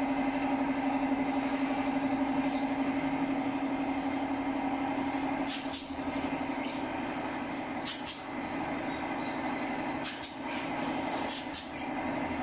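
Pneumatic hog-ring clip gun firing in quick pairs of short air hisses, four times, clamping galvanized wire cage panels together, over the steady hum of the air compressor feeding it.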